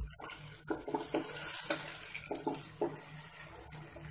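Mutton and fried onions sizzling in hot oil in a pot while being stirred with a wooden spoon, with a handful of short scrapes and knocks of the spoon against the pot. The hiss swells about a second in and eases off near the end.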